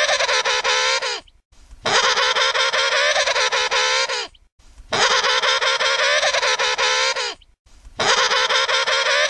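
Emperor penguin trumpeting: the same long, pulsing call repeated about every three seconds, each call lasting about two and a half seconds with short silences between. One call ends about a second in, two full calls follow, and another begins near the end.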